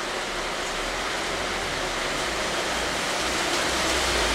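Steady, even background hiss with no distinct event in it.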